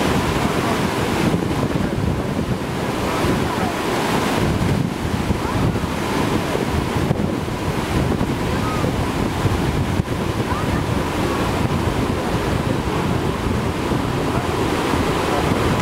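Whitewater of a river play wave on the Deschutes River rushing and crashing steadily, with wind buffeting the microphone.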